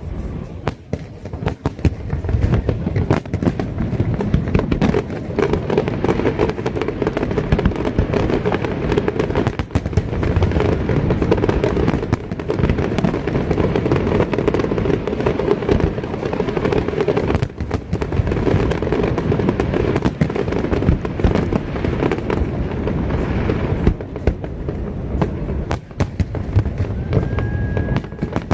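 Fireworks display: a continuous, dense barrage of bangs and crackles from many shells bursting in quick succession.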